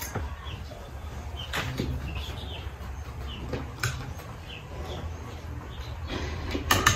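Quiet serving sounds at a meal: a few light clicks of a plastic spoon scooping adobo from a glass dish, over a low steady hum. Faint short bird chirps are heard in the background.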